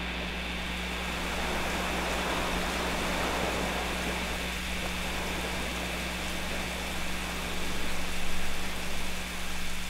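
Steady hiss of ambient noise with a constant low hum beneath it, swelling a little near the end.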